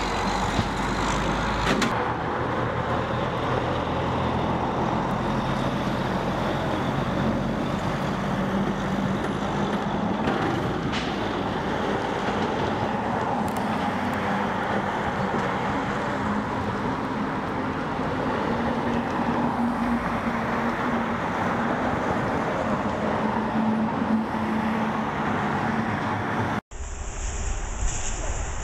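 Steady noise of heavy truck engines running, with a low engine hum throughout, from fire trucks and water tankers at the scene. Near the end it cuts off abruptly and a thinner-sounding outdoor recording takes over.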